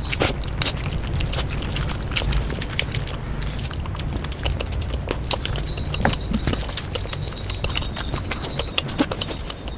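Close-miked eating of spicy egg omelet and curries: chewing and mouth sounds made of many quick, irregular clicks and smacks throughout.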